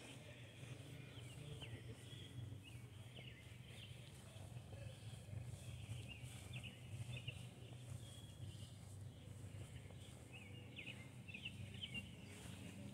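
Small birds chirping in short, scattered calls over a faint, steady low rumble of outdoor background noise.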